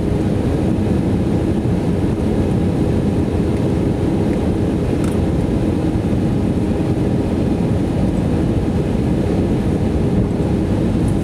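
Steady in-flight cabin noise of an Airbus A320neo heard from a window seat by the wing: the Pratt & Whitney PW1127G geared turbofans and the airflow make an even low rush with a faint steady hum.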